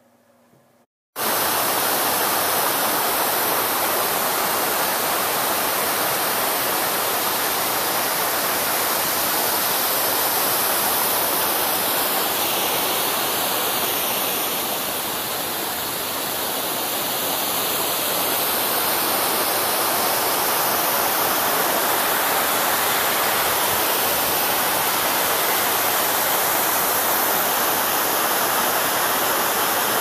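A waterfall and its creek rushing, a steady, loud wash of water noise that starts about a second in and eases slightly about halfway through.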